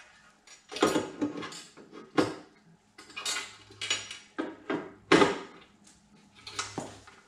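Irregular knocks, clunks and clattering of a motorcycle saddlebag and its quick-disconnect mounting bracket being positioned and fitted against the rear fender, the loudest knock about five seconds in.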